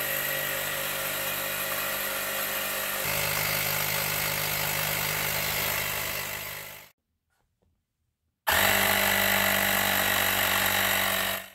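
A rechargeable portable air compressor running with a steady motor hum that shifts in tone about three seconds in. It stops, stays silent for a second and a half, then runs again for about three seconds and stops.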